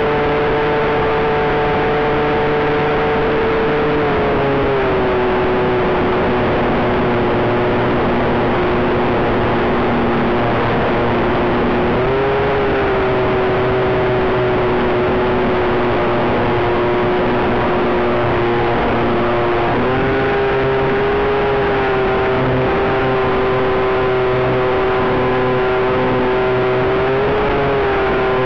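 Electric brushless motor and propeller of a radio-controlled BD-5 model plane in flight: a steady whine that drops in pitch about four seconds in and rises again around twelve and twenty seconds in, following the throttle.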